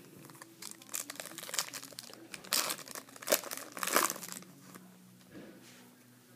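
Foil trading-card pack wrapper crinkling and tearing as it is opened, in a run of crackles that is loudest in the middle and dies away about four and a half seconds in.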